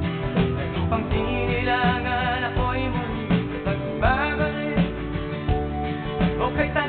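Instrumental music with guitar and a wavering, sliding lead melody line, without singing.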